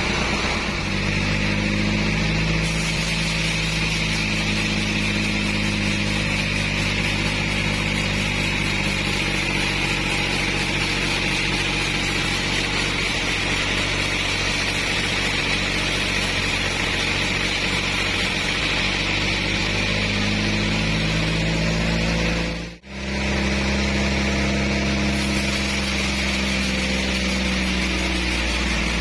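Bandsaw mill running steadily: its engine's steady hum with a high band of blade and cutting noise over it. The sound briefly cuts out about three-quarters of the way through, then resumes.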